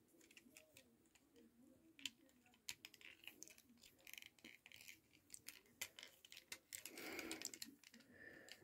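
Faint, scattered clicks and taps of a plastic action figure's parts being handled and pushed together, with a brief rustle about seven seconds in.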